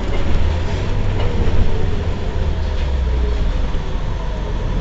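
Heuliez GX 327 city bus's engine idling while the bus stands still, a steady low rumble.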